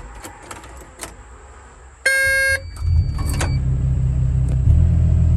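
Kato HD308US-7 excavator's diesel engine being started: a few small key and switch clicks, a short electronic beep about two seconds in, then the engine cranks, catches and settles into a steady idle.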